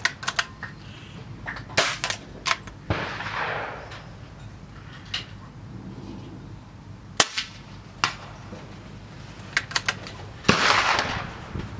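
Air Arms S410 carbine, a pre-charged pneumatic air rifle, being shot and handled: a series of sharp cracks and clicks, the loudest about seven seconds in, with two short stretches of hiss.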